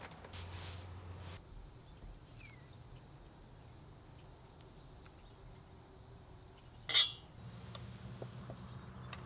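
Metal tableware handled on a camp table: faint small clicks, then one sharp clink about seven seconds in.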